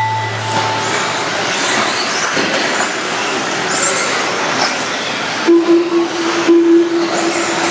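A pack of RC racing buggies running on a dirt track: a dense, steady whir of motors and tyres. From about five and a half seconds in, a louder steady low tone comes and goes as a buggy runs close by.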